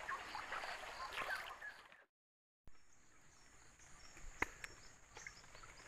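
Faint riverside ambience: rushing floodwater with repeated short, high chirps from small animals. A couple of seconds in, the sound cuts out completely for about half a second, then comes back with a steady high-pitched drone under the chirps and a single sharp click about four and a half seconds in.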